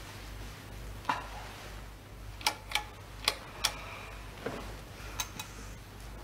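A handful of sharp, irregular clicks and light knocks, about eight in all and loudest a little after two and three seconds in, as a man moves about and sits down on a sofa. They sit over a steady low hum on the old film soundtrack.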